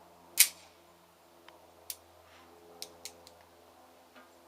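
A single gunshot about half a second in, with a short echo, followed by a few faint clicks.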